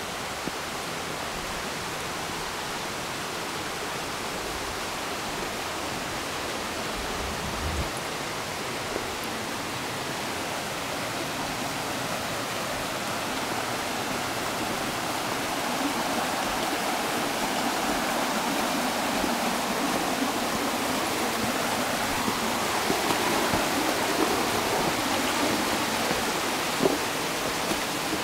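Steady rush of water from a waterfall and a mountain stream tumbling over rocks. It grows louder and fuller about halfway through, with a few faint clicks.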